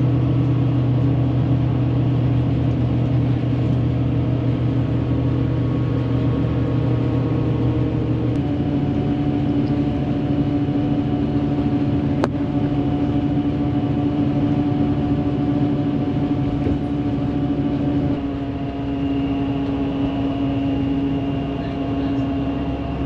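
Intercity coach heard from inside the cabin while it drives on a highway: a steady engine and road drone. The engine note changes about 8 seconds in and again about 18 seconds in.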